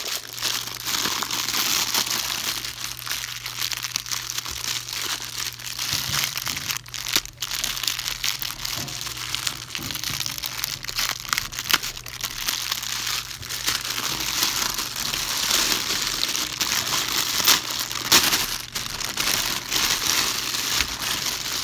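Thin plastic packaging bag crinkling and rustling as it is pulled off and crumpled by hand, with many sharp crackles throughout.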